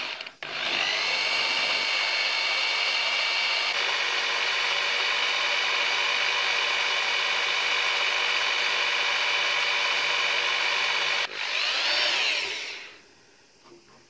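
Handheld electric drill with a twist bit drilling into a strip of bone. The motor runs at a steady whine for about eleven seconds, cuts out briefly, then runs again for a second and a half with its pitch rising and falling before it stops.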